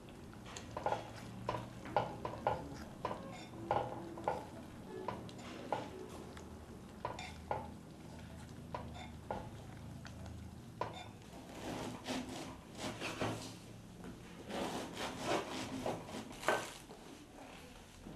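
Cutlery and dishes clinking and knocking: a string of separate sharp taps through the first half, then denser scraping clatter from about twelve seconds in.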